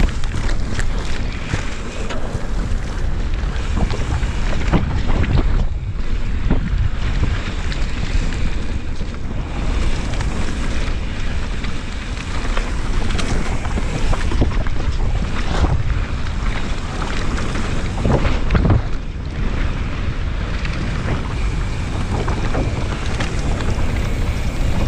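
Wind buffeting the microphone of a camera riding on a mountain bike descending at speed on a rough dirt and grass trail, over a steady rumble of tyres and drivetrain rattle with frequent small knocks from bumps. Harder jolts come about six seconds in and again about eighteen seconds in.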